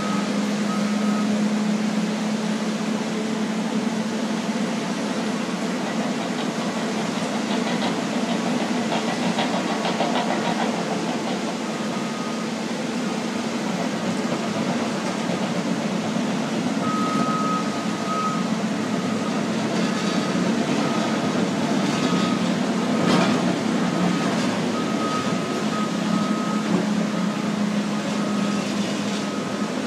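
Heavy diesel earth-moving machines (wheel loaders working sand) run steadily, with a backup alarm beeping about once a second through the second half and briefly at the start.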